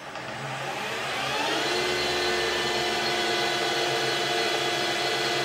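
Precision Matthews PM-1440GT lathe headstock, driven through a Hitachi WJ200 VFD by a new Marathon E470 3 hp three-phase motor, spinning up in reverse in high gear H4. A whine rises in pitch for about the first second and a half as the drive ramps up, then holds steady at about 700 RPM spindle speed, running smoothly.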